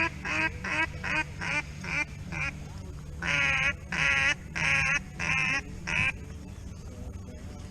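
A duck quacking: a quick run of about seven short quacks, then about five longer quacks, over a low steady rumble.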